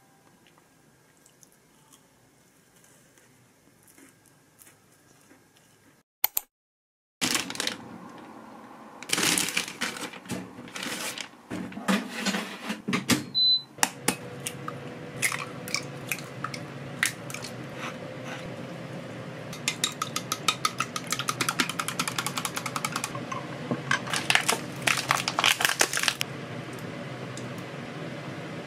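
Eggs being cracked and dropped into a small glass bowl, with sharp knocks and clinks of shell and glass, then a fast run of light clicks against the glass.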